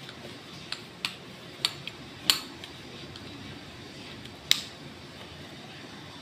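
Sharp metal clicks and clinks, about six in all, as parts of a stripped-down pistol are handled and wiped with a rag; the two loudest come a little over two seconds in and near the middle. A steady low hiss runs underneath.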